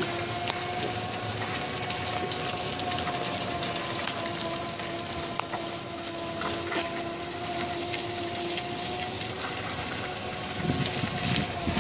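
Trackless land train, a mock steam locomotive tractor towing carriages, driving slowly on concrete: a steady whine from its drive over a hiss of tyre and running noise, with a few light clicks and low rumbles near the end.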